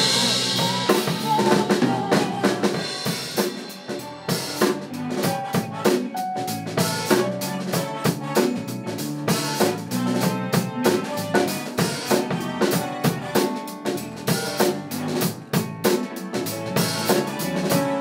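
Live pop-rock band playing an instrumental passage, the drum kit to the fore with a steady, driving kick-and-snare beat over keyboards and guitar. A held sung note trails off in the first second or so.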